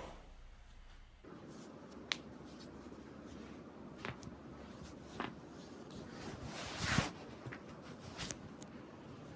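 Joints cracking during neck and back adjustments: about five sharp pops spaced a second or two apart, with rustling of clothing and body movement between them. The loudest pop comes about seven seconds in, at the end of a short swell of rustling.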